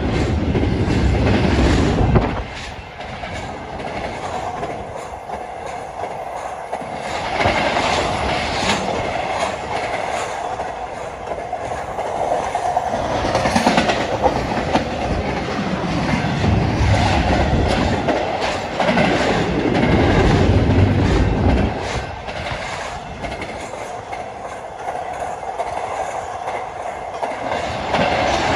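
A fast intermodal freight train's cars passing close by: the steady rush of steel wheels on rail with clickety-clack over the rail joints. The rumble swells and fades several times as groups of wheels go past.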